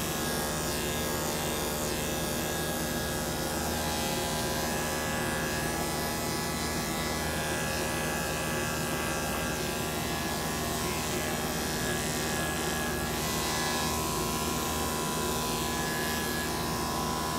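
Corded electric dog-grooming clippers running steadily as they are worked through a long-haired dog's coat, giving a continuous even buzz.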